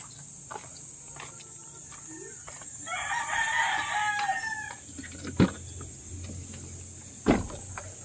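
A rooster crowing once, about two seconds long, starting about three seconds in. It is followed by two sharp knocks, the loudest sounds, about five and seven seconds in. A steady high-pitched insect buzz runs underneath.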